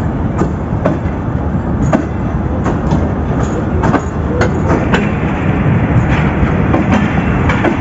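Pakistan Railways passenger coaches rolling past as the train departs: a steady low rumble of wheels on rail with repeated sharp clicks as the wheels cross rail joints.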